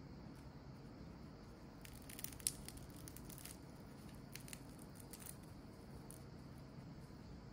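Crispy fried potato cubes crackling and crunching as they are torn apart by hand. There is a run of sharp crackles about two seconds in, with one louder snap, then a second short run of crackles about four and a half seconds in.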